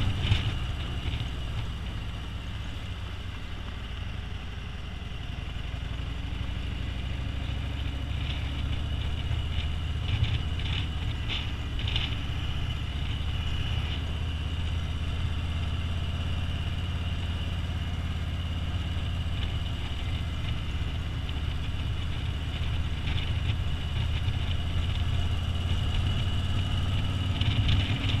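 Touring motorcycle's engine running steadily at road speed, heard from the rider's seat, with a slight dip in level a few seconds in before it settles again.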